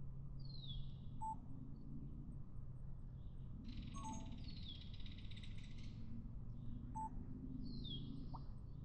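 A songbird repeating a short high song phrase three times, a falling slurred note running into a buzzy trill, about every three to four seconds, over a steady low hum.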